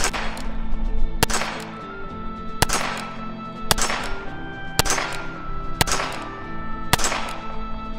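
Nagant M1895 revolver, 7.62×38mmR, fired seven times one-handed at a steady pace of about one shot a second, each crack followed by a short echo.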